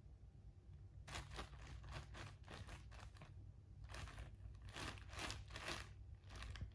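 Crinkling and rustling of a wrapped package as a Bengal cat bites and claws at it, in a string of short bursts.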